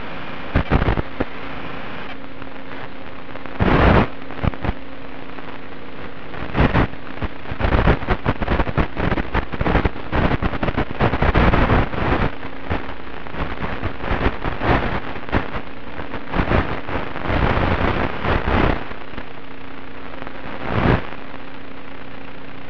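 Static hiss from an analog FPV video link's audio channel as recorded by the goggles' DVR, with a faint steady hum underneath. Irregular crackling bursts come through it, thickest in the middle, as the 1.3 GHz signal breaks up with interference.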